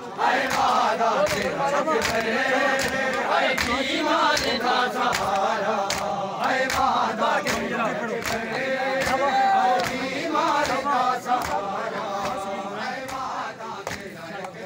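A crowd of men chanting a noha together, over a steady beat of open-hand slaps on bare chests (matam) about twice a second.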